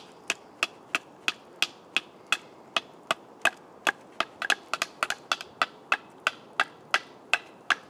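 Knife chopping at an angle into the end of a green sapling stake held against a log, cutting it down to a point. A steady run of sharp knocks, about three a second.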